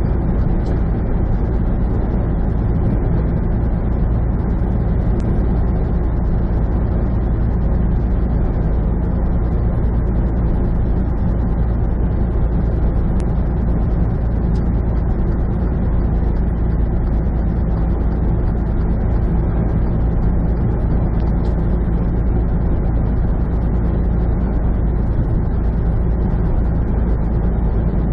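Steady drone of a semi truck's diesel engine and road noise, heard from inside the cab while cruising at highway speed.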